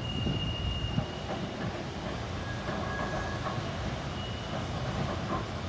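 Gomaco-built replica Birney streetcar running on its rails, a steady rumble with irregular knocks. A few brief high-pitched squeals come and go.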